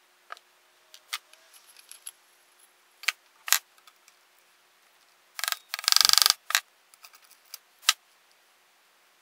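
Hand tools and metal engine parts clicking and clinking as an old small engine is taken apart by hand, with a quick rattling run of clicks lasting about a second a little past the middle.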